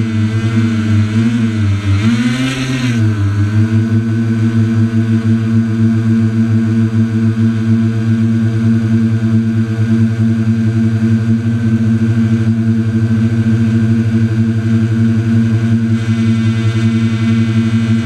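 Quadcopter's electric motors and propellers whirring close by, a loud steady hum whose pitch wavers up and down for the first few seconds and then holds steady.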